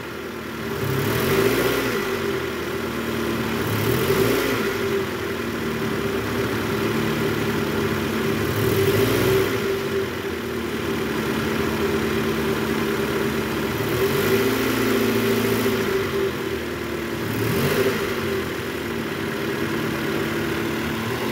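Toyota Camry XV40's 2AZ-FE four-cylinder engine idling in reverse and revved up and back down about five times. No growl comes from the newly replaced belt tensioner.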